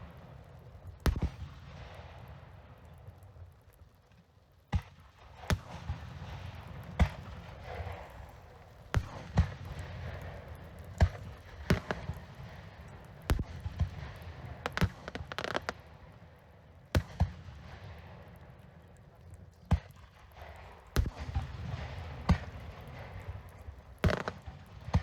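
Fireworks display: aerial shell bursts going off one after another as sharp bangs roughly every second, with crackling and rumble between them. A brief lull falls about three to four seconds in.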